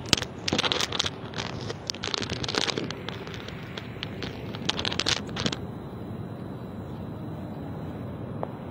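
Irregular rustling, scraping and crackling with scattered clicks for about five and a half seconds, then a steady, quieter background noise.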